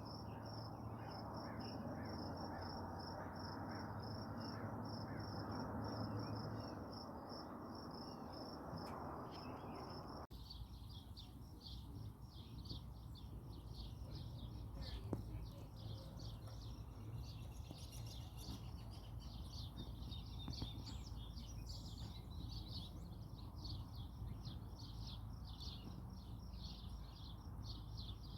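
Crickets trilling steadily in a high, evenly pulsing chorus over a low outdoor hiss. About a third of the way in, an abrupt cut brings a denser run of rapid high-pitched chirps.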